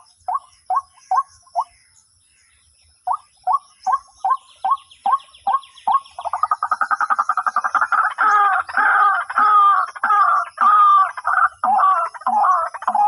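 White-breasted waterhen calling: a series of short, evenly spaced notes, about three a second, that break off briefly. The notes then quicken and, about halfway through, turn into a louder, continuous rapid chatter of repeated two-note phrases.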